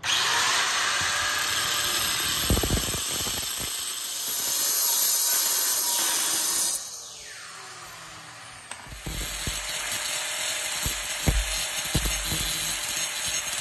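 Angle grinder grinding the steel jaw of a locking C-clamp: a steady, harsh grinding that cuts off about seven seconds in, followed by a falling whine as the disc spins down. About two seconds later the grinder is back on the clamp, grinding with knocks and changes in load.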